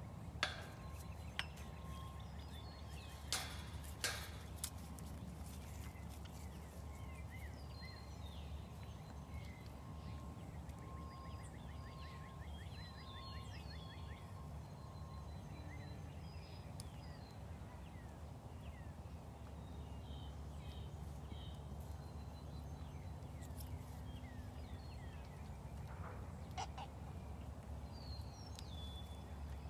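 Outdoor farmyard ambience: birds chirping and calling throughout over a steady low rumble of wind. A few sharp clicks come in the first few seconds and once more near the end.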